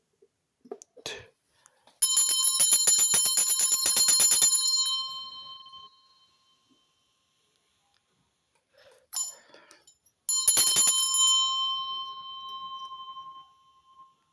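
A handbell rung twice, sounding a note around C6. First it is shaken rapidly, its clapper striking many times for about two and a half seconds before the tone dies away. About ten seconds in it is struck once and left to ring out and fade.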